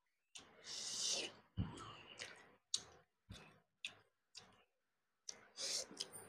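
Close-miked mouth sounds of a person eating rice and fish curry by hand: a string of short wet chewing and lip-smacking clicks, with two longer breathy sounds, one about a second in and one near the end.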